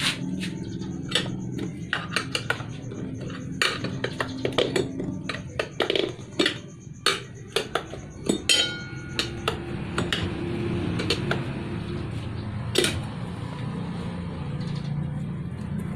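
Steel tyre lever clinking and knocking against a motorcycle's spoked wheel rim as a new tyre's bead is levered and pressed onto it: many sharp metal clicks in the first half, fewer later.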